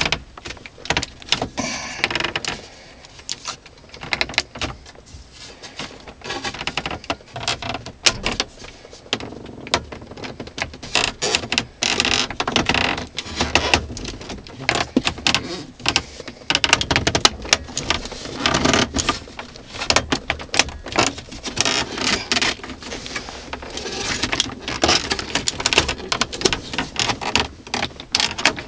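Hands working plastic dashboard trim and a wiring-harness connector: irregular clicks, knocks and scraping rustle as the connector is pushed onto the automatic temperature control unit and the unit is worked back into the dash.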